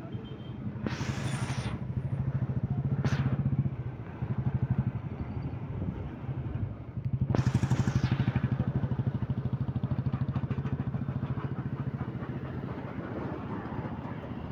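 Two-wheeler engine running while riding through traffic, easing off twice and picking up again, with gusts of wind buffeting the phone microphone.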